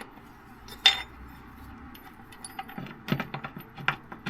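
Loose steel hardware and hand tools clinking while an engine-mount bolt is handled: one sharp metallic clink about a second in, then a scatter of lighter clicks and clinks toward the end.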